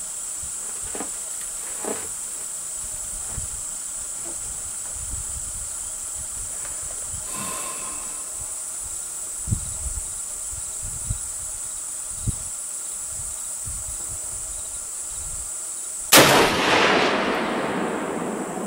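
A steady high-pitched insect chorus with a few faint knocks, then near the end a single rifle shot whose report rolls away over a couple of seconds.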